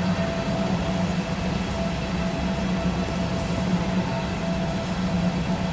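Diesel locomotives idling at the platforms, a steady low hum with a faint steady higher tone above it.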